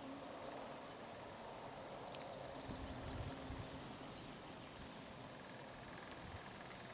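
Quiet outdoor ambience with a faint low rumble, and songbirds trilling in the surrounding trees: a short trill about a second in and a longer one near the end.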